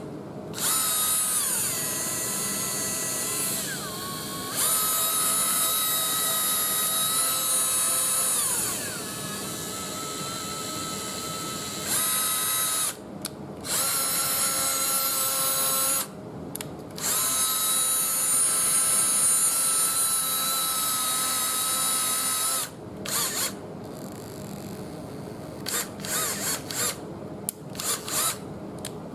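Bosch GDR18V-LI 18 V cordless impact driver's motor running in bursts of several seconds, its whine rising and falling in pitch as the trigger is squeezed and eased, with a few stops and a run of short blips near the end.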